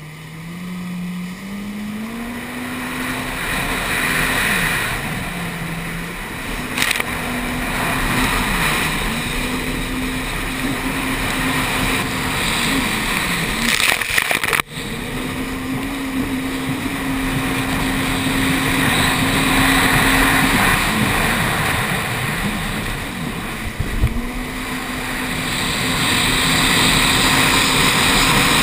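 Runabout jet ski engine running hard at high revs. Its pitch climbs, then dips and recovers several times as the throttle is eased and reopened through turns, over loud rushing water and spray. About halfway through the sound briefly drops out with a couple of sharp clicks as spray drenches the camera.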